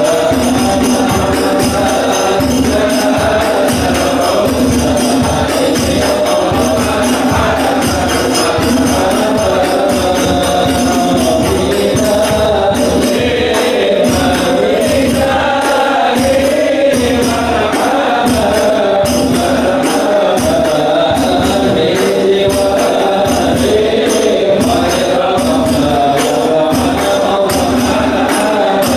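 A congregation of men singing Islamic devotional chant (sholawat) together, over hand drums keeping a steady beat.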